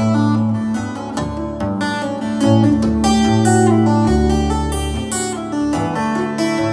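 Solo acoustic guitar playing a fingerstyle instrumental: plucked notes ring on over a held drone note while the bass notes shift beneath.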